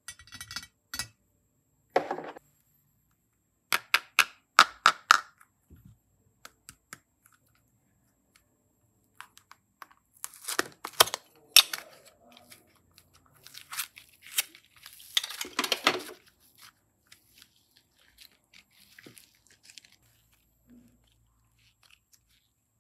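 Hands handling slime and craft materials: irregular clicks, crackles and crinkling in short bursts, busiest from about ten to sixteen seconds in.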